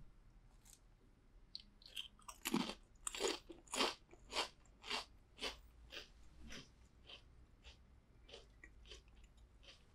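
Potato chips being bitten and chewed in a run of sharp crunches. They are loudest a few seconds in, go on at about two a second, and fade to lighter chewing near the end.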